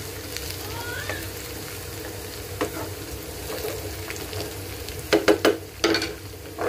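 Sliced onions sizzling in hot oil in a nonstick frying pan as they brown, stirred with a wooden spatula. A few sharp knocks and scrapes stand out about five seconds in and again near the end.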